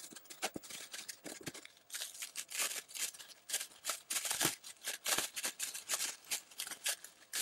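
Bubble wrap and plastic packaging crinkling and rustling as it is handled and pulled open, played at four times normal speed, so it comes as a fast, dense crackle that gets busier about two seconds in.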